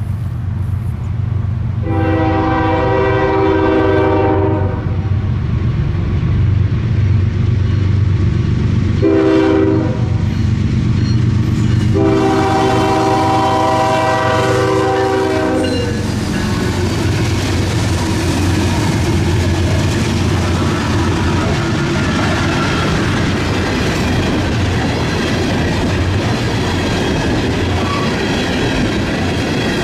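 Canadian National diesel freight locomotives pass close by with their engines running under load. They sound their horn for the grade crossing in three blasts: long, short, long. From about halfway through, the freight cars roll past with steady wheel clatter on the rails.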